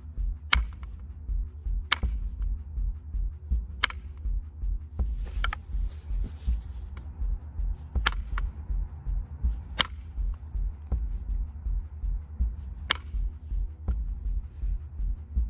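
Knapping a stone point with a copper flaker: about eight sharp, ringing clicks of the flaker striking the edge to drive off flakes, at uneven gaps of a second and a half to three seconds, with a brief scraping in the middle as the edge is ground.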